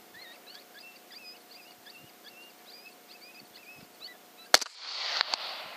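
A chorus of short, high, wavering yips and whines, then a single rifle shot about four and a half seconds in at a coyote, the loudest sound. A burst of noise and one more sharp crack follow just after the shot.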